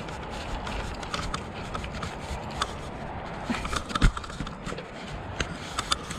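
Bicycle rolling over a dirt path: tyres crunching on grit, with many small clicks and rattles from the bike and a low steady rumble. A sharp knock about four seconds in, as from a jolt over a bump.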